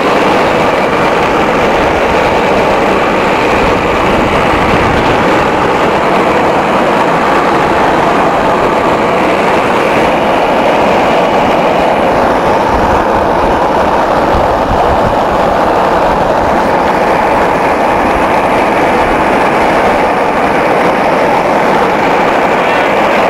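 Moped engine running steadily as it rides along a street, mixed with heavy wind noise rumbling on the microphone.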